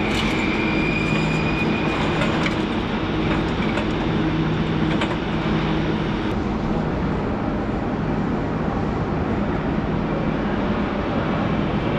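Industrial plant machinery running steadily: a dense, even rumble with a low hum. A thin high whine sounds for the first two seconds or so, with a few faint clicks scattered through.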